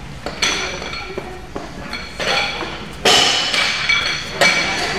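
Weight plates and collars being changed on an Olympic barbell's sleeves: several sharp metallic clinks that ring on briefly, the loudest about three seconds in.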